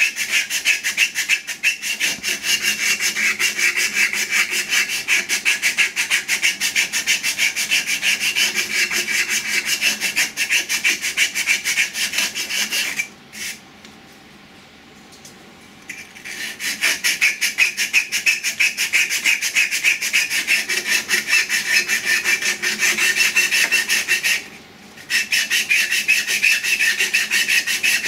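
Abrasive cloth rubbed quickly back and forth against camphor laurel wood, sanding down into the saw cuts between the petals of a turned tulip. It makes a fast, even rasping that stops for about three seconds midway and briefly again near the end.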